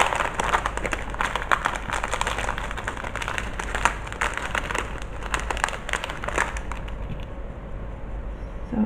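A small plastic bag of googly eyes crinkling and rustling as fingers rummage in it, with many small clicks; the handling dies down about seven seconds in.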